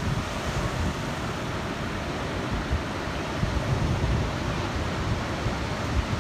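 Ocean surf breaking and washing in over the shallows, a steady rushing noise, with wind rumbling unevenly on the microphone.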